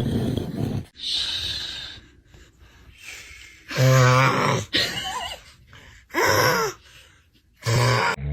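A person snoring loudly in separate breaths, about every one to two seconds, some of them pitched and rising and falling like a groan.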